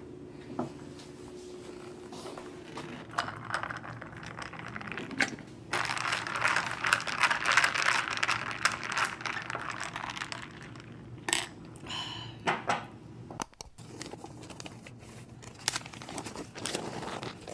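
Close crinkling and rustling as something is handled, with scattered sharp clicks and knocks; the crinkling is densest from about six to ten seconds in.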